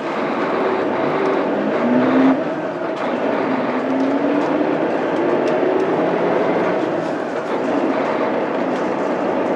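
Mitsubishi Fuso Aerostar bus's 6M70 inline-six diesel heard from inside the cabin, pulling hard as the bus accelerates. The engine note rises, drops off about two seconds in at a gear change in the 5-speed manual, then rises again in the next gear.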